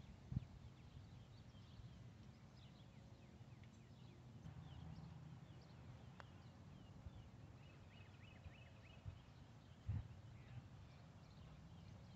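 Faint twittering of small birds, many short chirps, over quiet outdoor background. A soft low thump comes just after the start and another near the end.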